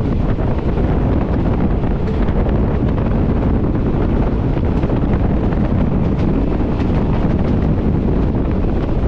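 Wind buffeting a microphone held out of a moving passenger train, over the steady running noise of the train on the rails.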